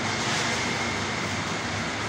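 Electric-motor-driven palm kernel oil processing machinery running: a steady mechanical drone with a faint, thin high whine over it.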